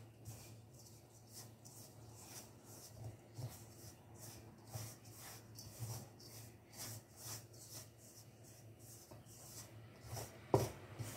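Wooden spoon stirring a stiff, crumbly flour-and-coconut dough in a stainless steel bowl: faint, rhythmic scraping strokes, two or three a second, with one louder knock near the end.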